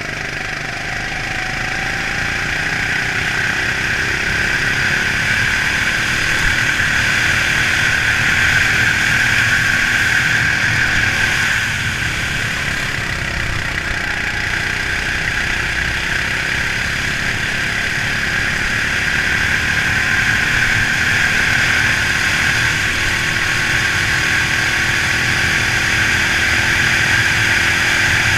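Racing kart engine running hard at speed, its pitch rising and falling with the revs through corners and straights. It grows louder over the first several seconds, drops back briefly a little before halfway, and climbs again near the end.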